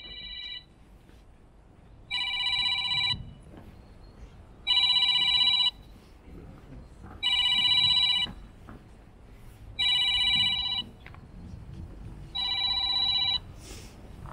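Telephone ringing with an electronic ring tone: five identical rings about a second long, spaced about two and a half seconds apart, each a chord of steady high tones. A shorter tone sounds at the very start.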